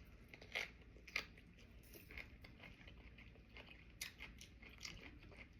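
Faint chewing of sushi, with a few brief soft crunches and mouth clicks spread through.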